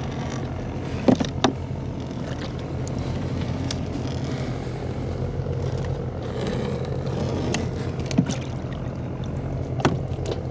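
Small motorboat engine running steadily with a low hum, with a few sharp knocks about a second in and again near the end.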